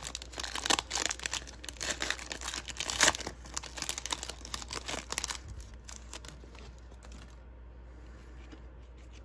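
Foil wrapper of an Upper Deck Synergy hockey card pack being torn open and crinkled as the cards are worked out. It makes a dense crackling, loudest about three seconds in, that dies away about five and a half seconds in and leaves only faint handling of the cards.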